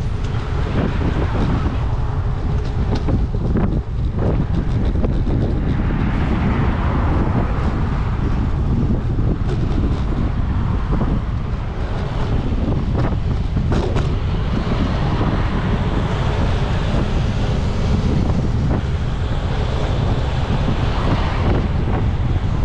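Wind buffeting the microphone on a moving bicycle, a steady low rumble, with road traffic swelling past a few times and a few light clicks.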